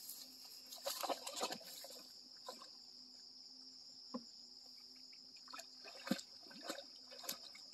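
A dog wading into shallow pond water: a few short, irregular splashes and sloshes, over a steady high-pitched chirring of insects.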